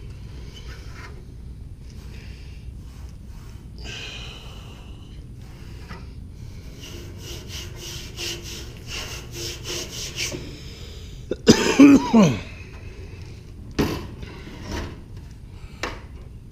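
Handling noise from an air handler's evaporator coil and its newly fitted drain pan: scraping and rubbing, with a run of quick even scraping strokes in the middle. About two-thirds of the way in comes a short, loud, throaty vocal sound, the loudest thing heard.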